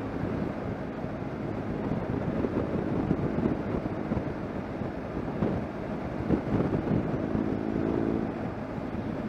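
Wind and road noise rushing over the microphone while riding a BMW R1200 GSA, its boxer-twin engine running underneath. About seven seconds in, a steadier engine hum stands out for a second or so.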